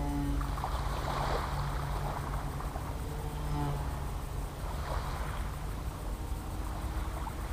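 Small propeller plane's engine droning as it flies low past, its pitch falling as it goes by near the start and again about three seconds in, with wind rumbling on the microphone.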